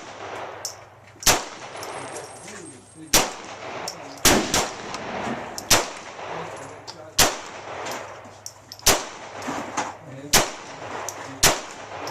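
A gun fired repeatedly at targets: about nine sharp shots in twelve seconds, mostly a second or two apart, with two in quick succession near the middle, each followed by a short ringing tail.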